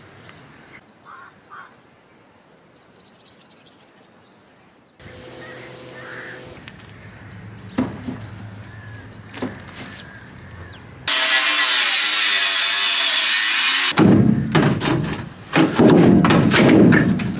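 Power tools cutting into a van's steel body panel: a loud steady run of about three seconds past the middle, then a harsh, rapid chattering cut near the end. Quieter handling knocks before that.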